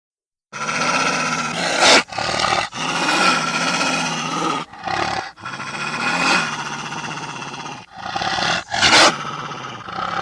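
Dire wolf sound effect: a run of deep growling snarls. They start about half a second in and break off briefly every second or two, with the loudest snarls near two seconds and near nine seconds.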